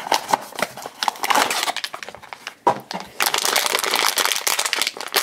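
A cardboard blind box being handled and opened, with scattered clicks and rustles and one sharp snap, then a foil blind bag crinkling steadily from about three seconds in as it is pulled out and handled.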